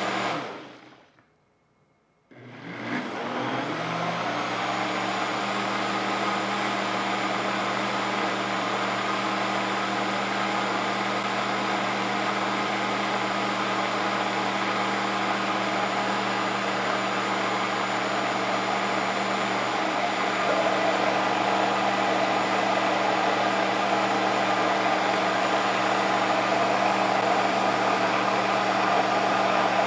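Nutribullet combo blender motor on its Extract program, blending soaked Irish sea moss into a thick gel. It winds down and stops about a second in, starts again at about two seconds and ramps up, then runs steadily, a little louder from about twenty seconds on.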